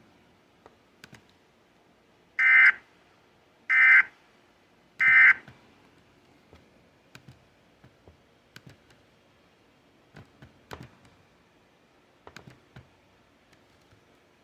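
Three short bursts of Emergency Alert System SAME data tones, a harsh two-tone warble, about a second apart: the end-of-message signal that closes the flash flood warning. Faint scattered clicks follow.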